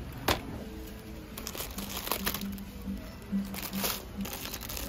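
Background music, over which a boxed chocolate bar knocks sharply into a plastic shopping basket just after the start, followed by several spells of plastic snack wrappers crinkling as packs of biscuits are handled and put in the basket.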